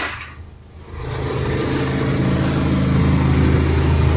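Kitchen fan running with a steady low hum and a hiss above it; the sound dips briefly just after the start, then builds back.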